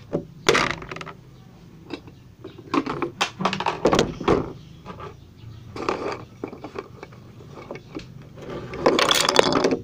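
Handling noise close to the microphone: a scattering of knocks, taps and scrapes as folded paper toy pieces are moved and set down on a table, with a denser rustle near the end.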